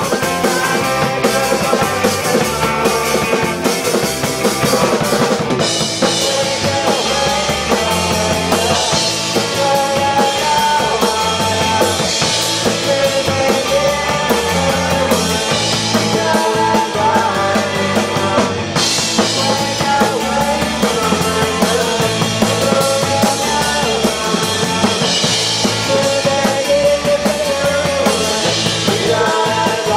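A rock band plays live: electric guitar, electric bass guitar and drum kit. The sound gets brighter from about six seconds in.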